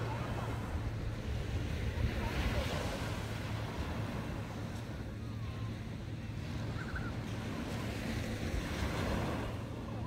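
Small sea waves breaking and washing up a sandy shore, swelling twice, with wind rumbling on the microphone underneath.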